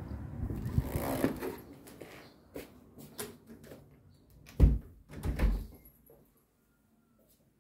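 A few knocks and thumps indoors, the loudest a heavy low thump about four and a half seconds in, followed by quiet.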